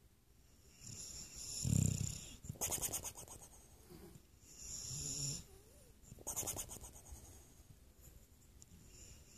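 Snoring: a low buzzing snore about two seconds in, then rattling and hissing breaths every couple of seconds, growing fainter near the end.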